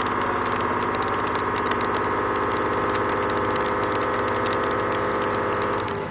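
Face mill with HNKX inserts cutting metal at 2 mm depth of cut: a steady tone from the cutter with a rapid patter of sharp ticks from the chips. Near the end the tone stops and the sound drops away.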